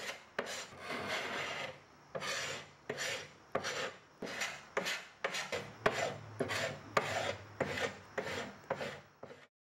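Hand sanding the old finish off a wooden cabinet frame with 150-grit sandpaper: quick back-and-forth rasping strokes, about two a second, that stop suddenly just before the end.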